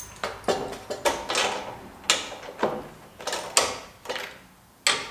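Irregular sharp clicks and knocks of a plastic tail-light housing being handled and fitted with a screwdriver onto a steel tire-carrier light mount, about a dozen in all, with a short lull near the end.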